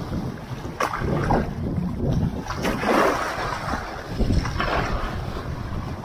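Wind blowing across the microphone in uneven gusts over choppy sea water, with waves sloshing and lapping.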